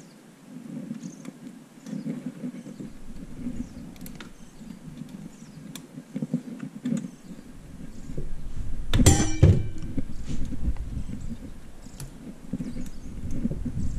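Handling noise from parts of a Double telepresence robot's wheel hub being worked loose by hand: rubbing and small clicks, with one louder clatter about nine seconds in.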